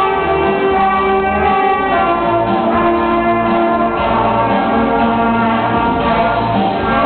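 Small student band of saxophones with a horn, playing slow, sustained held notes. A low bass note pulses underneath from about two seconds in.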